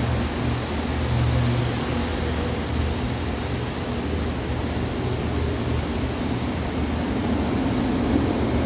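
JR Kyushu limited express train pulling out of the platform, its cars rolling past with a steady rumble of running noise and a low hum.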